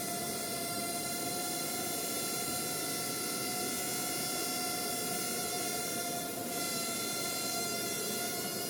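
Parrot Mambo minidrone's propellers whining steadily in flight, one even pitch with several overtones over a rushing hiss.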